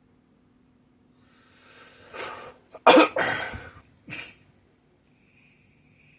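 A person coughing: a drawn breath, then a sharp, loud cough about three seconds in, and a shorter one about a second later.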